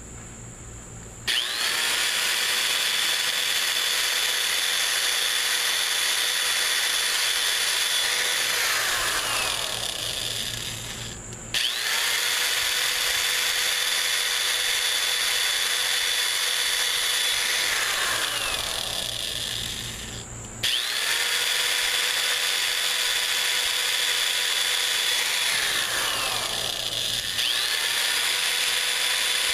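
Electric drill running in three long runs of about nine seconds each, drilling pilot holes in a plastic fan shroud out to their final size with a larger bit. The motor whine comes up quickly at the start of each run and drops in pitch partway through.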